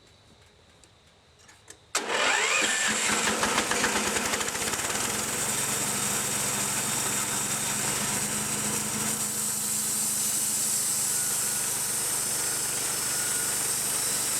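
Faint light clicks, then about two seconds in a portable sawmill's engine starts up with a brief rising whine and runs on steadily and loudly.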